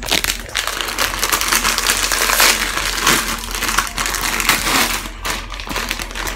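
Plastic instant-noodle packet crinkling and crackling as it is torn open and handled.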